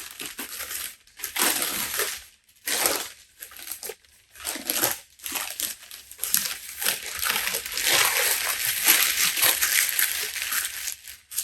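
Newspaper crumpling and rustling as it is unwrapped from a folding camera. It comes in irregular bursts with short pauses, and runs more continuously through the second half.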